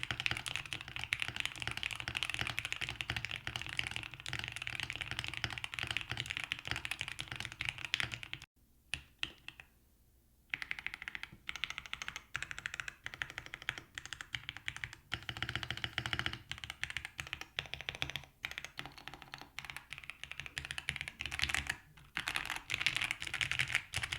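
Fast typing on a QK65 custom mechanical keyboard fitted with factory-lubed Gateron Oil King linear switches and PBT keycaps: a dense run of keystrokes breaks off for about two seconds a third of the way in, then resumes as a looser, more uneven stream. The keystrokes sound deep and smooth rather than scratchy.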